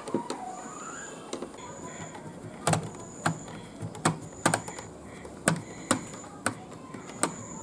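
Irregular sharp clicks and taps of plastic laptop parts and a tool being handled and worked during laptop disassembly, about nine distinct clicks in the second half.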